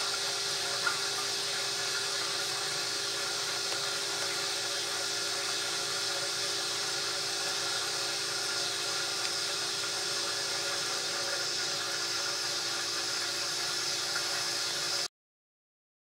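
Refrigerant boiling off in the freezer evaporator of a running Borg Warner Norge refrigerator: a steady, liquid hiss with a faint steady hum under it, stopping abruptly near the end.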